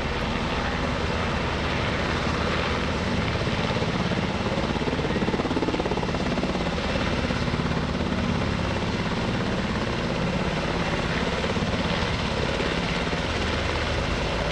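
UH-60 Black Hawk helicopter hovering low, its main rotor beating rapidly and evenly over the steady rush of its twin turboshaft engines.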